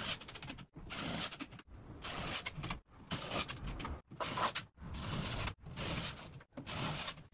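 Cordless drill-driver running in a series of short bursts about a second each, driving screws through drywall into the cabinet's metal framing.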